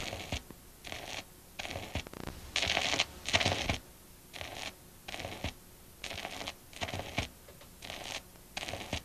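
Lo-fi tape noise soundtrack: about a dozen short bursts of scratchy static cutting in and out over a low hiss, the loudest a little under halfway through.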